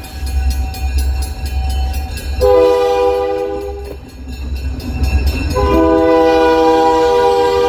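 Multi-chime air horn of a Great Lakes Central Railroad diesel locomotive sounding as the train approaches. It gives one blast of about a second and a half, then a long blast that starts past halfway and holds, over the low rumble of the locomotives.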